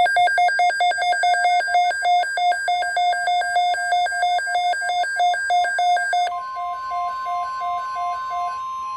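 Weather radio alert: a rapid electronic beeping, several beeps a second, for about six seconds. Then the steady NOAA Weather Radio warning alarm tone (1050 Hz) starts, and the beeping fades out under it.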